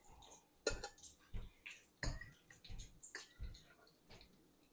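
Light knocks and clinks of kitchen utensils and dishes being handled while cooking, about half a dozen short, separate strikes.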